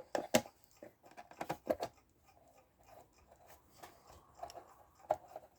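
A small screw being driven into the back cover of an Elco electric clock with a screwdriver: irregular small metallic clicks and scrapes, bunched in the first two seconds, then a few single clicks.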